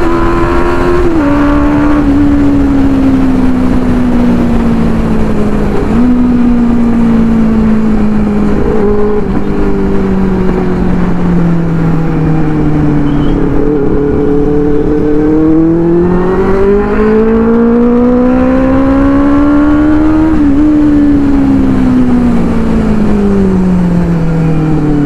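Inline-four superbike engine on the move. Its note sinks slowly for most of the first half with a short jump up about six seconds in, then climbs for several seconds to a peak near twenty seconds in as the bike accelerates, and falls away again.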